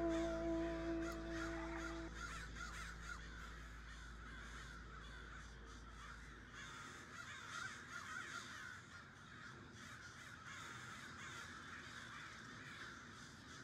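Guitar music fades out in the first two seconds, leaving a flock of crows cawing, many short calls overlapping at once.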